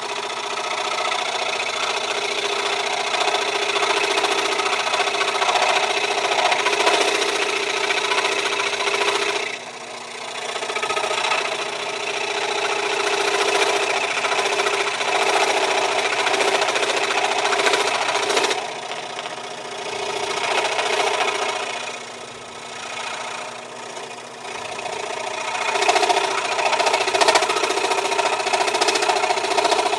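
A cheap modern WEN scroll saw running at higher speed, its blade cutting through thick wood stock, with the machine rattling heavily. The sound drops away briefly a few times as the cut eases.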